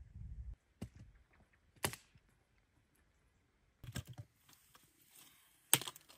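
Firewood sticks and branches clacking and knocking as they are handled and laid in a brick fire pit, with one loud sharp knock near the end. Before that come two isolated sharp clicks in the first two seconds, then a short quiet stretch.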